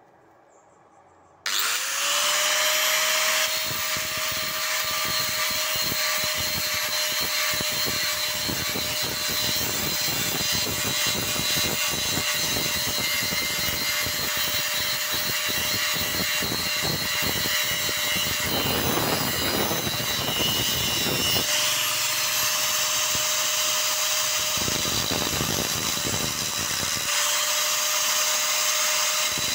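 Angle grinder starting about a second and a half in, its motor whine rising quickly to a steady pitch, then grinding paint and rust off a steel plate down to bare metal, with a rough scraping noise. The scraping eases off briefly a couple of times while the motor keeps running.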